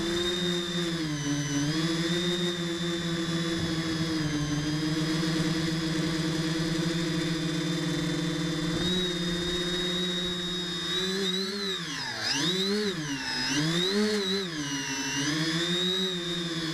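Brushless motors and propellers of a tricopter whining in flight. The pitch holds fairly steady, then swoops down and back up about three times in the second half as the throttle is worked.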